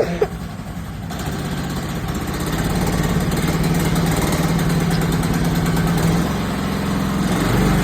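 Engine running steadily after being started, its level rising over the first few seconds, then holding a constant hum that eases slightly about six seconds in.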